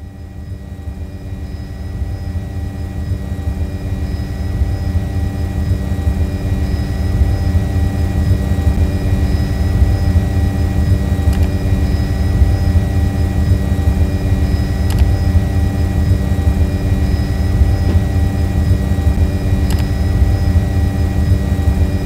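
Quadcopter drone hovering: a steady propeller hum made of several held pitches, growing louder over the first several seconds. A few brief clicks sound from about the middle on.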